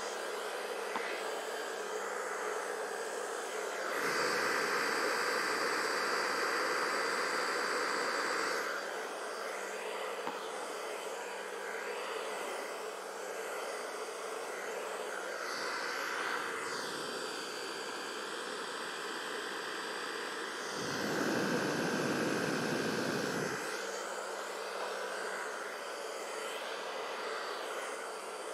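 Hair dryer blowing steadily with a thin motor whine, growing louder for a few seconds twice.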